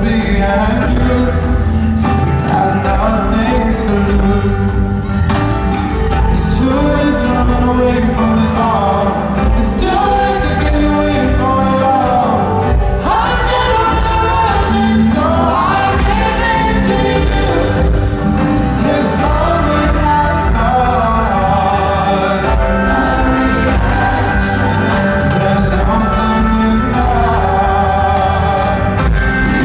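Live pop-soul song in an arena: a male lead singer over keyboards, bass and drums, with a group of backing vocalists, heard through the arena's sound system from the stands.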